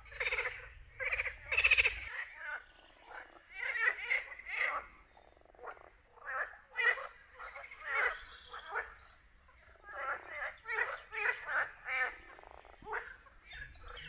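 Frogs calling in chorus from a pond: many overlapping short, rattling croaks, several a second.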